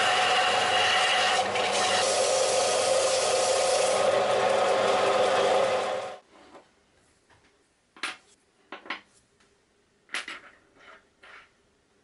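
Bench belt sander running with a small piece held against the sanding belt: a steady grinding with a motor hum in it. It cuts off suddenly about six seconds in, followed by a few faint taps.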